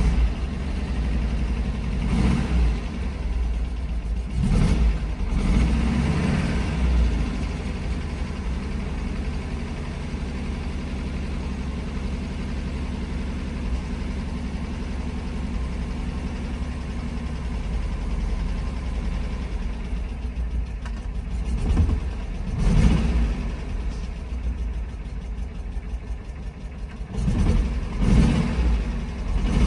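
1967 Porsche 912's air-cooled flat-four engine running at idle as it warms up after a cold start, heard from inside the cabin. It is blipped up and back down four times in the first several seconds, then idles steadily, with two more short blips in the last third.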